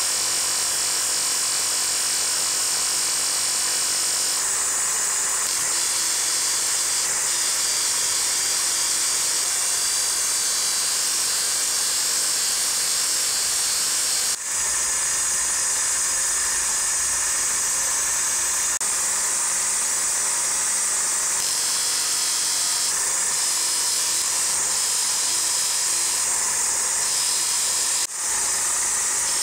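High-speed power tool running steadily with a high whine and hiss. It drops out for a moment twice, about halfway through and near the end.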